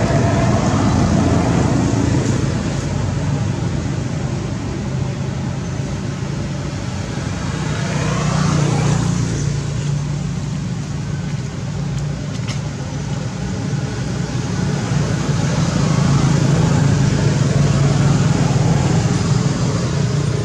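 Steady low engine hum, swelling briefly about eight seconds in and again near the end.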